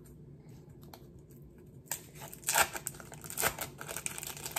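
Clear plastic wrapper of an individually wrapped processed cheddar slice crinkling as it is peeled off. There are irregular crackles starting about two seconds in.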